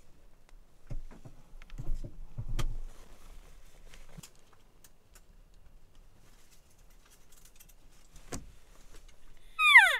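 A few soft knocks and rustles, then near the end a loud, high squealing call that falls steeply in pitch over about half a second: a cow-elk mew.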